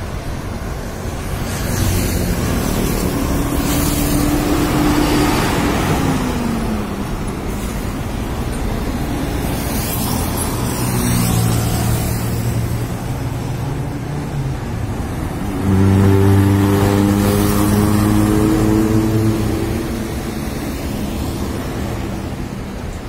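Road traffic passing, with trucks and cars going by one after another and their engines droning. One engine's pitch drops as it passes about six seconds in. The loudest engine comes in suddenly about sixteen seconds in and fades out by about twenty.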